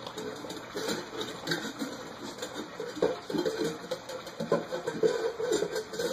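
Puppies lapping and slurping from a shared bowl, with many small wet clicks and short squeaky grunts and whimpers mixed in.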